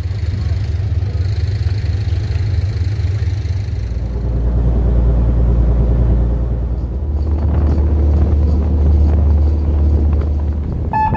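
Fishing boat's engine running under way, a steady low rumble that deepens and grows louder about four seconds in, with a short high beep right at the end.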